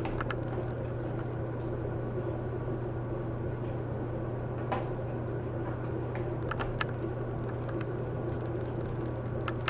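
A few light clicks and taps from hands working a laptop's LCD panel and its cable pin connector loose, over a steady low hum.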